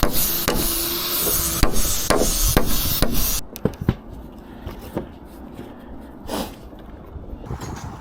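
Hammer blows on timber during traditional hanok roof carpentry, about two a second at first, then fewer and quieter. A loud steady high hiss underneath stops abruptly about three and a half seconds in.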